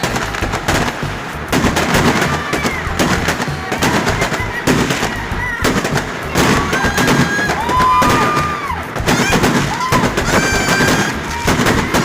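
Fireworks going off in rapid, dense crackling volleys of bangs, with several high whistling tones over them.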